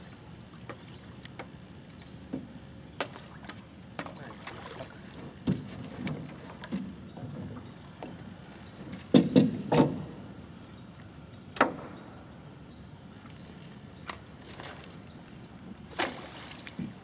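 Paddle and duck decoys clunking against an aluminium jon boat, with water sloshing and splashing as decoys are set out: scattered knocks, a cluster of loud clunks about halfway through, and a sharp splash near the end as a decoy hits the water.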